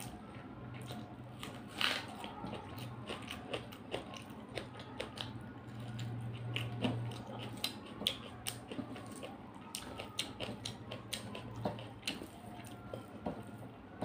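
Close-miked eating sounds: rice being mixed with the fingers and chewed, with many small wet clicks and smacks, the sharpest one near two seconds in. A faint low hum runs underneath.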